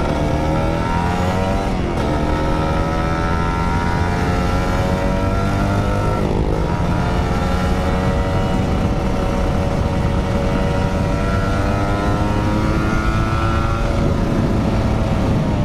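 Motorcycle engine heard from the rider's seat, accelerating through the gears. Its pitch climbs, drops sharply at gear changes about two and six seconds in, then climbs slowly again and eases off near the end.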